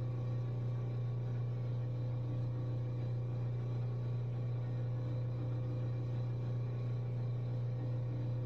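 A steady low hum, even and unchanging, with no other sounds over it.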